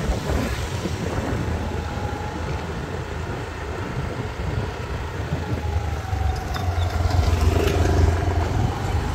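Street traffic with motorbikes and scooters riding past, engines running over a steady low rumble, getting louder about seven seconds in.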